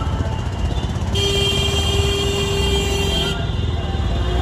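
A vehicle horn sounds one steady held note for about two seconds, starting about a second in, over the low rumble of engines in dense road traffic.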